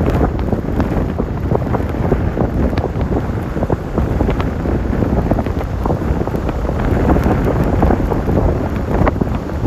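Strong storm wind buffeting the microphone: loud, unbroken wind noise with constant crackling.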